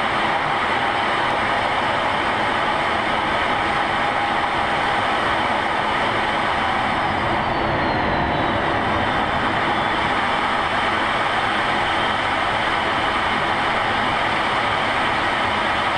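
Steady, unbroken jet engine and rushing airflow noise heard inside a fighter jet's cockpit.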